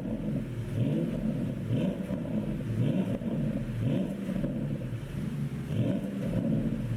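Porsche Panamera GTS twin-turbo V8 revved repeatedly through its stock exhaust, the pitch climbing and dropping about once a second. The engine runs an ECU tune made for pops and crackles on the overrun.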